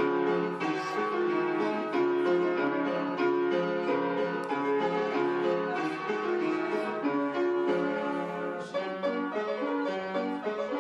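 Piano music: a steady run of many quick notes.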